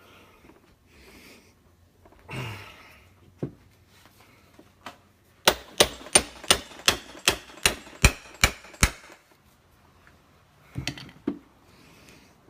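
Hammer tapping on metal: about a dozen quick, sharp strikes, roughly three a second, working a stuck bladder out of a motocross shock's gas reservoir. A few softer handling knocks come before and after.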